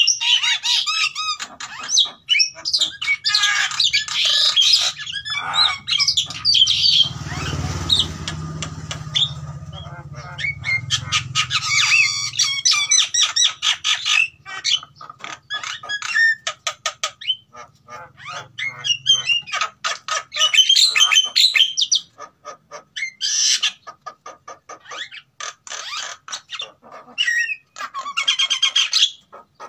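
A caged pair of Javan mynas (jalak kebo), male and female, calling loudly: harsh squawks and chatter with fast runs of clicking notes, breeding-condition calling. A low rumble sits under the calls for several seconds around the middle.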